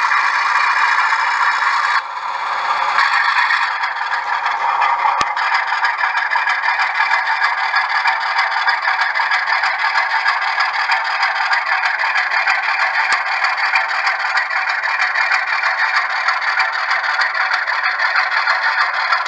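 Model train freight cars rolling past on the track: a steady rattle and scrape of small wheels on the rails.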